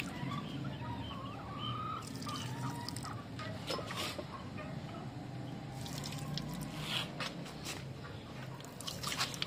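Water pouring from a plastic jug into clay water bowls, splashing and dripping, with a few faint fowl calls.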